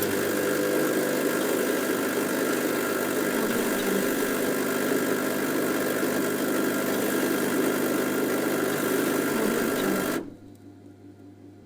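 Coffee machine running with a steady mechanical hum and rattle, which cuts off suddenly about ten seconds in, leaving only a faint low hum.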